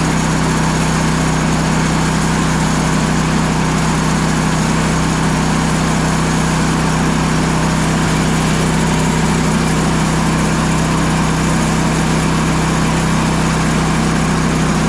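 Sawmill's petrol engine running steadily at constant speed, with no change in pitch or level.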